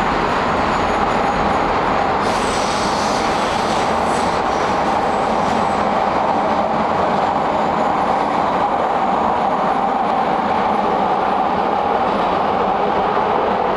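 CTA Red Line subway train pulling out of an underground station and running off into the tunnel: a loud, steady rumble of wheels on rail. A brief high-pitched screech of the wheels comes about two seconds in.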